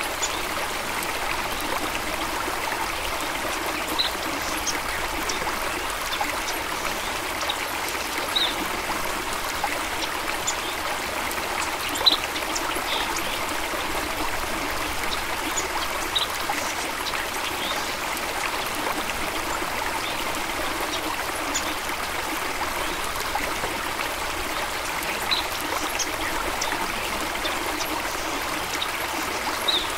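A small stream flowing and trickling steadily, with scattered brief bright plinks of water every few seconds.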